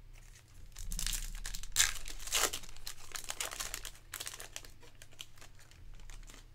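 Foil wrapper of a 2023 Panini Elite Extra Edition Baseball card pack crinkling as it is torn open and the cards are pulled out. The crackling is loudest from about one second in until about four seconds, then drops to fainter rustling.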